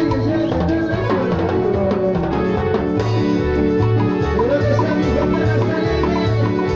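Chicha band playing live: a guitar melody over bass and drums with a steady dance beat.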